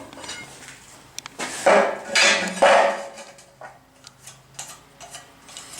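Steel pieces and tools clanking and scraping as they are handled on a shop bench: light clinks, then three louder scraping clatters about two seconds in.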